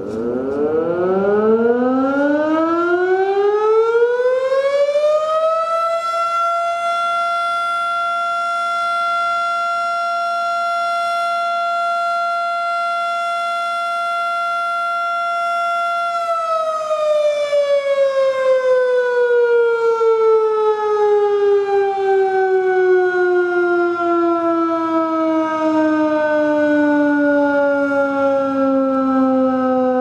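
Erick outdoor warning siren on a water tower sounding the city's curfew signal. It winds up in pitch over about six seconds, holds one steady wail for about ten seconds, then slowly winds down.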